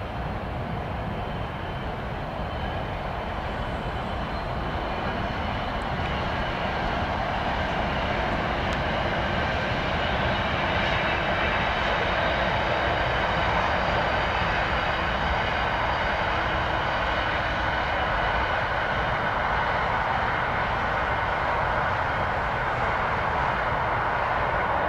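DB Cargo Class 66 diesel freight locomotive passing at speed, followed by a long train of empty flat wagons. A steady rumble of wheels on rail grows louder over the first ten seconds or so and then holds as the wagons roll by.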